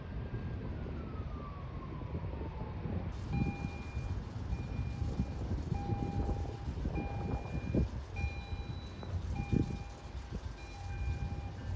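A single tone gliding downward, then an electronic warning tone beeping on and off about once a second over a low rumble.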